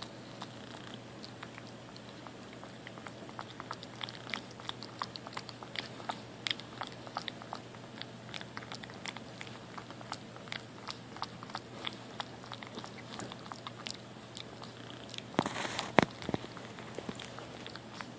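Maltese puppy lapping milk from a bowl: a quick, irregular run of small wet clicks, several a second. About fifteen seconds in comes a louder short scuffle that ends in a sharp knock.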